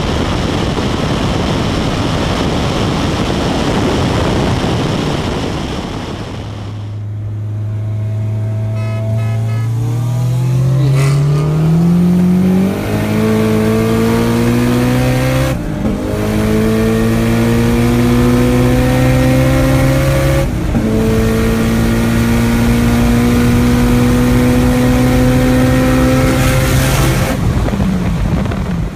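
A high-powered car accelerating hard at speed, heard from inside the cabin: first a steady roar of engine, wind and road, then after a cut the engine's pitch climbs slowly through each gear, with brief breaks at several upshifts.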